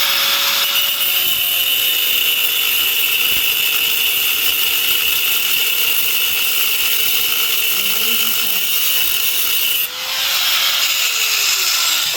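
Handheld electric power tool running continuously with a steady whine, letting off briefly about ten seconds in and then running again; loud.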